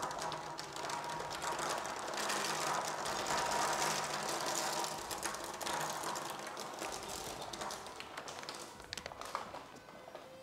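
Snack bags crinkling as nuts and pretzel sticks are poured out, the pieces clattering onto and scattering across a tabletop in a dense run of small clicks that dies away near the end.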